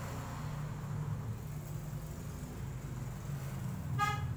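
A steady low motor hum, like an engine idling, with a short high pitched tone about four seconds in.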